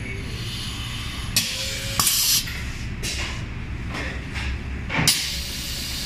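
Several short bursts of compressed-air hiss over a low steady hum, the strongest about two seconds in and just after five seconds: pneumatic valves exhausting air.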